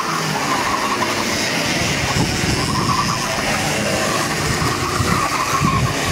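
Several two-stroke racing kart engines buzzing as a pack laps the circuit, their pitch rising and falling as they rev out of corners and back off.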